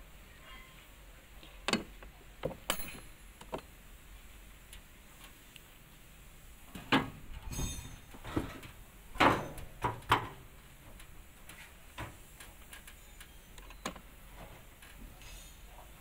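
Scattered clicks and knocks of metal against metal as hands work at the hinge edge of a Caterpillar 320GC excavator's steel side door and panels, with a cluster of louder knocks about halfway through.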